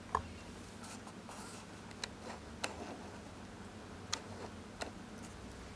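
A faint steady low hum with five short, sharp clicks scattered through it, the loudest about a tenth of a second in.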